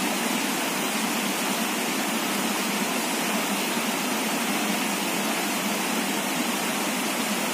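Shallow rocky stream rushing over stones close by: a steady, even rush of water.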